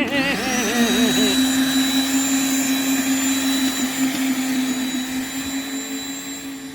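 A small electric motor running steadily, a hum with a high whine over a rushing noise, fading near the end.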